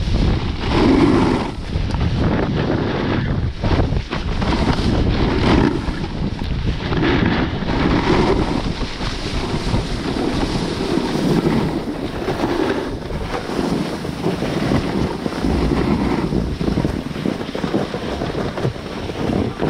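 Wind buffeting an action camera's microphone, mixed with a snowboard's base and edges scraping over packed snow during a run. The noise rises and falls in swells every second or so.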